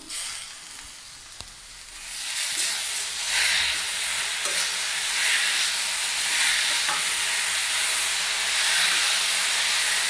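Vegetables and tomato purée sizzling in hot oil in a metal kadai while a metal ladle stirs them. It is quieter for the first two seconds, then the sizzle grows loud and holds steady, with the scrape and swish of the stirring.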